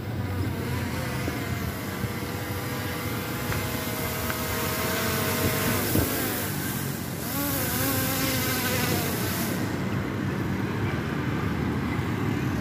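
An SJRC F22S quadcopter drone's propellers buzz as it comes down and lands, the pitch wavering up and down. The high hiss drops away about ten seconds in.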